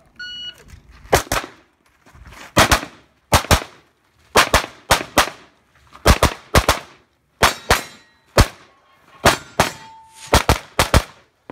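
A shot timer beeps once. Then an Open-division race pistol fires more than twenty shots, mostly in quick pairs with short gaps between them.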